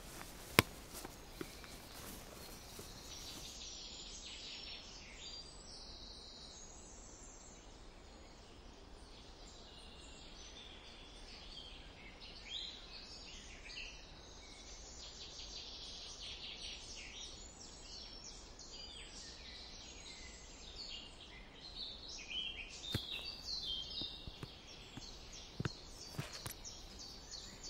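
Small birds chirping in woodland, many short calls over a faint steady hiss, growing busier in the last few seconds. A single sharp click about half a second in.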